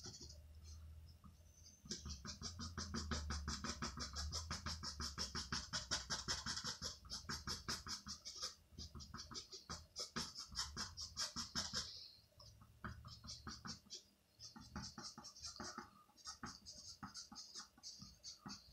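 Pencil scratching back and forth on moistened linen in quick, even strokes, several a second, as features of a portrait are darkened. The strokes are denser for most of the first half, then come shorter and sparser after about twelve seconds.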